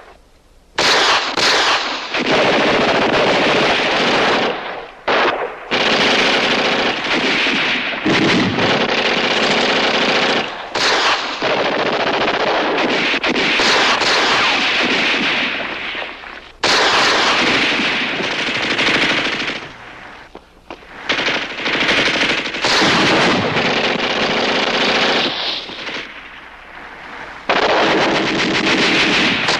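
Heavy gunfire in a staged WWII firefight: rifles and automatic weapons firing almost without a break, in long stretches separated by a few brief lulls.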